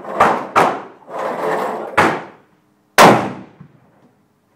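Four rifle shots, two in quick succession early on, then one about two seconds in and the loudest about three seconds in, each sharp crack dying away in a short tail.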